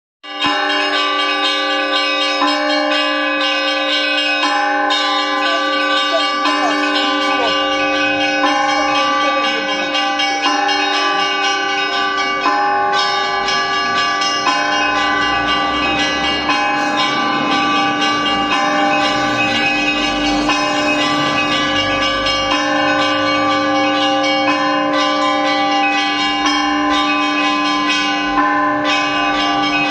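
Russian Orthodox church bells ringing a full peal: several bells of different sizes struck over and over, their tones overlapping into continuous ringing.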